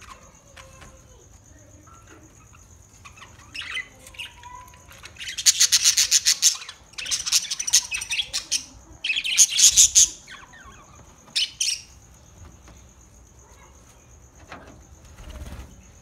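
A flock of budgerigars chirping and chattering, with several loud bursts of rapid, high-pitched chatter between about five and twelve seconds in.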